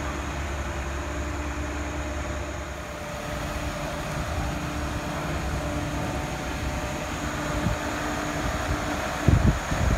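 Diesel engine of a Mack automated side-loader garbage truck idling, a steady low rumble with a held hum over it. A few loud low thumps near the end.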